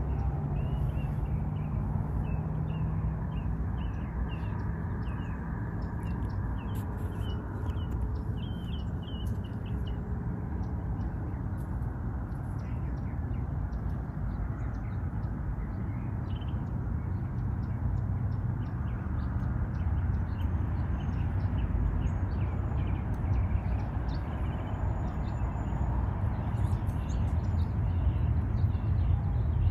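Small birds chirping in quick short notes, busiest in the first ten seconds and sparser after, over a steady low rumble.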